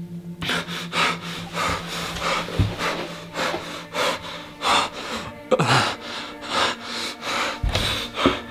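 A young man sobbing, with ragged, gasping breaths in and out, two or three a second. A low steady hum sits under the first half and fades about halfway through.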